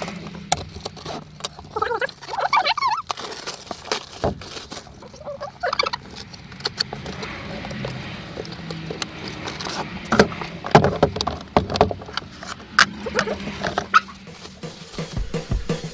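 Unwrapping a present: brown paper rustling and crinkling, then a cardboard box opened and the plastic packaging of a cordless drill handled, a run of irregular crackles, scrapes and sharp clicks. Short muffled vocal sounds come in the first few seconds.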